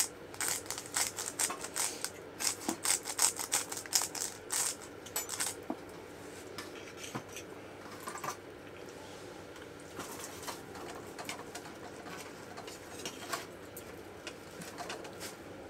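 Light clicks and clinks of cooking utensils against dishes and pans, quick and frequent for about five seconds, then only now and then.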